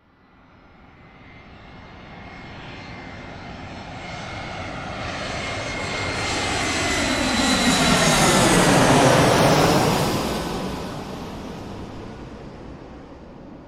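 An airplane flying past: engine noise with a steady high whine grows from nothing, is loudest about nine seconds in as the plane passes overhead, then fades as it moves away.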